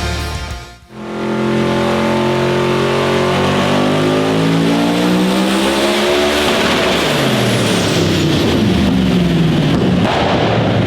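Twin-turbo V8 of a Holden VH Commodore street car running hard and revving up, its pitch climbing for several seconds after starting about a second in, as in a full-throttle dyno pull.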